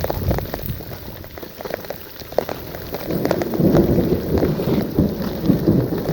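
Steady rain with many small, sharp drop ticks, and a low rumble that grows louder in the second half.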